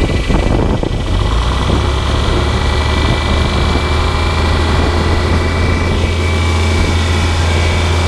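An older John Deere tractor engine running steadily at about 1500 rpm, below the PTO mark on the tachometer, turning a PTO-driven grain auger.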